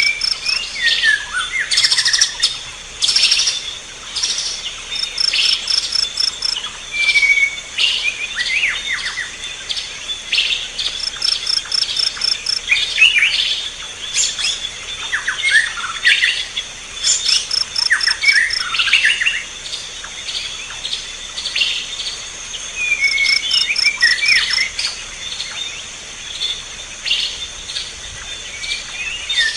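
A morning chorus of several birds calling, with short chirps and quick falling whistled notes throughout, over a steady high insect drone.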